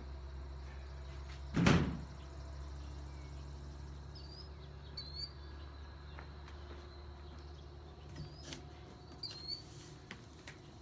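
Cardboard shipping boxes being handled: one loud thump about two seconds in, then a few light knocks. Short bird chirps repeat from about four seconds on over a low steady rumble.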